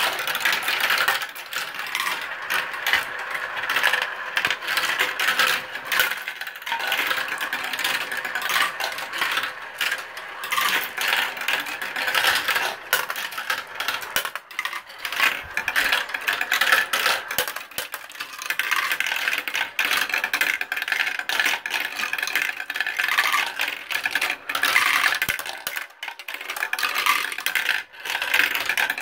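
Many marbles rolling and clattering through a plastic marble run. A continuous rattle along the tracks and funnel bowls is broken by frequent sharp clicks as marbles drop and strike the plastic pieces.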